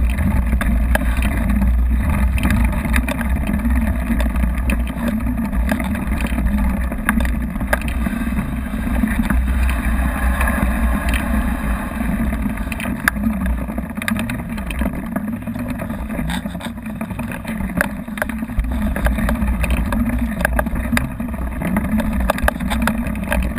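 Wind buffeting the microphone of a bike-mounted camera, with the mountain bike's knobby tyre rolling over concrete and dirt and frequent short clicks and knocks from the bike jolting over bumps.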